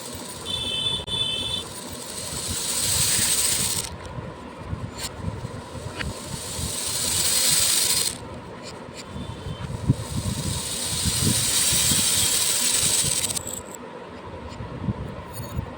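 A stream of beads being poured, a dense pattering hiss that swells and fades in three pours of a few seconds each, with scattered clicks of single beads falling between pours.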